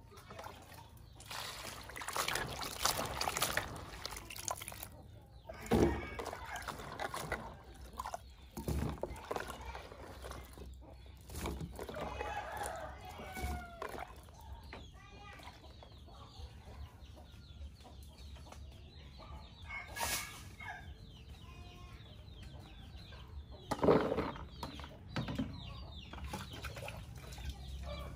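Chickens clucking and a rooster crowing. Water splashes and sloshes in a plastic bowl as cauliflower florets are washed by hand, with a few louder knocks or splashes.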